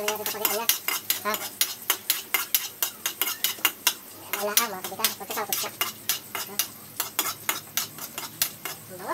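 A spatula scraping and clinking against a steel wok as food is stir-fried over a gas burner, in quick repeated strokes about four a second, with a light sizzle underneath.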